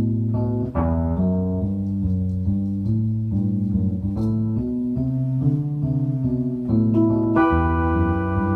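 Instrumental keyboard music: a bass line and chords moving about twice a second, with a brighter held chord coming in near the end.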